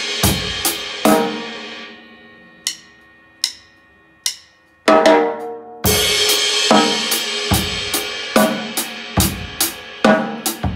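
KUMU drum kit played: three drum strokes under a ringing cymbal, then three light single clicks a little under a second apart. About five seconds in a steady groove starts, with a crash on the second stroke and hits about every 0.4 s.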